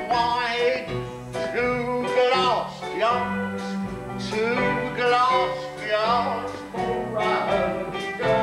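A stage musical number: voices singing a melody over instrumental accompaniment.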